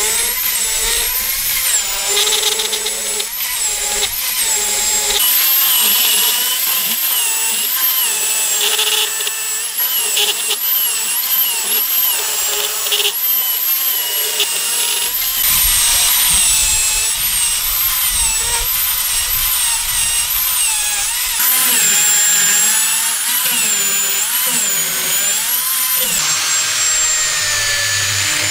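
Corded electric chainsaw running and cutting through a log. Its motor whine rises and dips in pitch as the chain bites into the wood, and the sound changes abruptly a few times.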